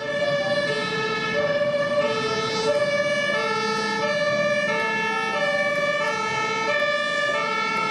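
Two-tone hi-lo emergency siren, switching between a high and a low note about every half second.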